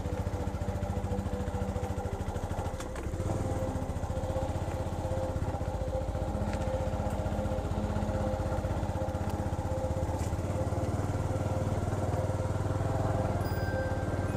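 Motorcycle engine running steadily as the bike rides along a dirt track, heard up close from the pillion seat; the engine eases off briefly just under three seconds in, then picks up again.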